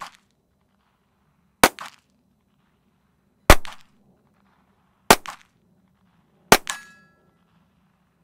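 Four unsuppressed shots from a Ruger 22/45 .22 LR pistol firing subsonic 40-grain ammunition, about a second and a half apart, each with a short tail. A brief ringing tone follows the last shot.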